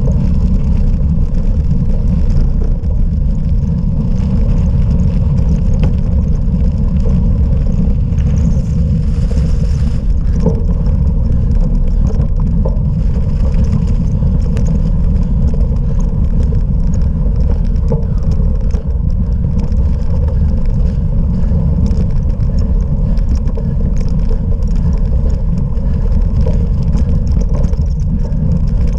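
Cyclocross bike ridden over rough off-road ground: a steady, loud low rumble of wind and tyre vibration on the microphone, with light rattling clicks scattered through it.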